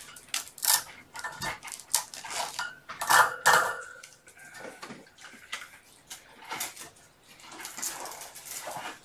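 Irregular clicking, clinking and rattling of hard objects being handled, as a webcam and its clips and mount are fitted and adjusted, with the loudest clatter about three seconds in.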